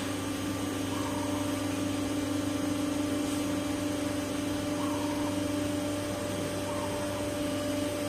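Hydraulic power unit of a vertical baler press running as the ram lifts the pressing platen: an electric motor and pump humming steadily with a steady whine, which eases a little about six seconds in.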